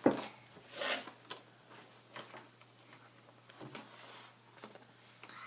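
Play-Doh being re-rolled and handled on a tabletop: a sharp knock at the start, a brief rubbing hiss about a second in, then scattered light taps.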